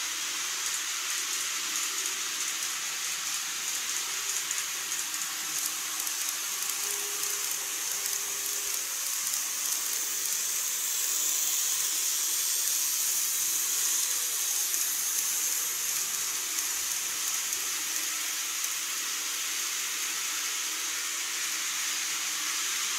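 Steady hiss with an N-gauge Keikyu model train running over a model truss bridge; the sound swells slightly about halfway through as the train passes.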